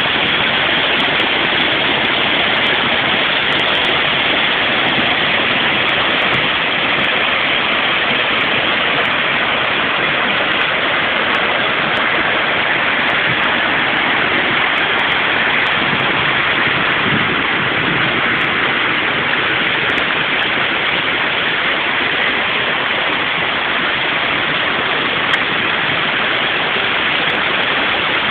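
Small forest waterfall and rapids: loud, steady rush of stream water tumbling over rocks.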